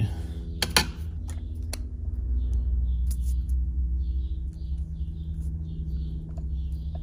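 Light metallic clicks of a screwdriver working the points adjustment screw on a Ford 2N distributor, a few sharp ones in the first couple of seconds, then soft faint scraping, over a steady low hum.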